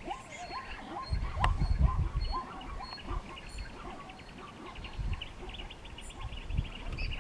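Wild bird calls: short rising calls repeated about twice a second over a steady, high, fast trill, with low rumbles that are loudest between one and two seconds in, and a single sharp click.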